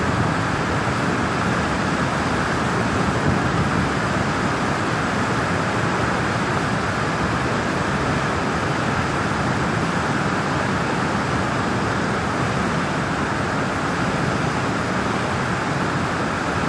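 Spillway water rushing through the open sluice gates of a dam and churning in whitewater below: a steady, unbroken rush.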